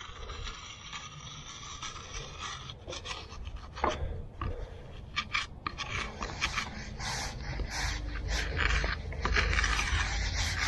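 Concrete float held on edge, scraping a relief-cut groove into fresh concrete in short, irregular strokes.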